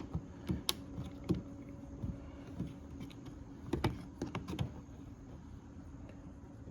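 Scattered sharp plastic clicks and taps as a stubborn plastic trim retainer is worked loose from the rear trunk trim, with a cluster near the start and another about four seconds in, over a faint steady hum.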